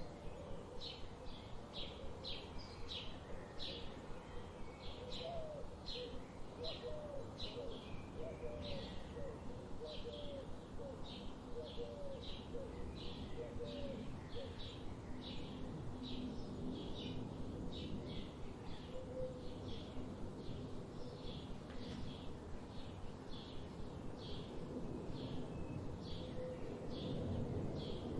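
Birdsong. One bird repeats a short high note about twice a second throughout, and a lower series of short hooked notes runs through the first half.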